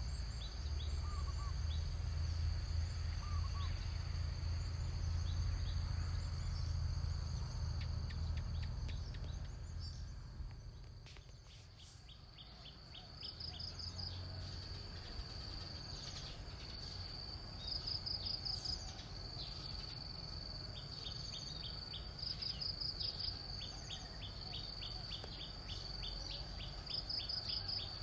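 Forest ambience of insects: a steady high-pitched drone, with a pulsing trill every four or five seconds and quick runs of ticking chirps, over a low rumble that fades out about ten seconds in.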